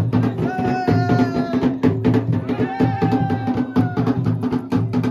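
Mandan folk dance music: fast, steady drumming, with two long held notes over it, the first about half a second in and the second from about two and a half seconds to four seconds.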